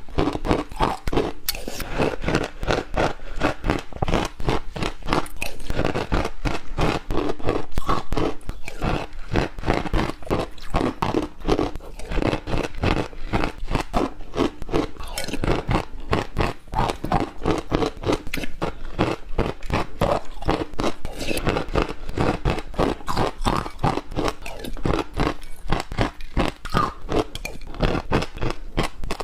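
Ice being bitten and chewed close to the microphone: a fast, continuous run of crunches and cracks.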